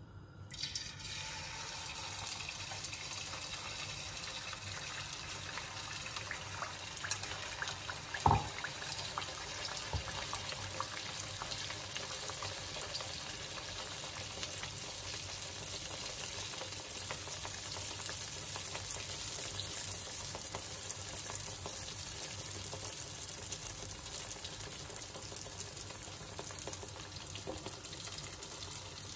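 Rice-and-egg batter (mutta surka) deep-frying in hot oil, which sizzles and crackles steadily from the moment the batter goes in. A single knock about eight seconds in.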